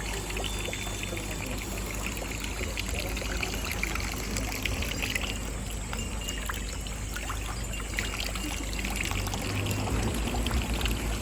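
Many Japanese furin wind chimes tinkling together, a dense scatter of light, high rings over a steady hum of background noise.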